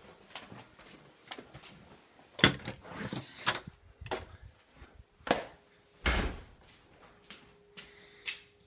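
A door opening and shutting amid footsteps: a string of separate knocks and thumps, the loudest about two and a half seconds in and another hard one about six seconds in.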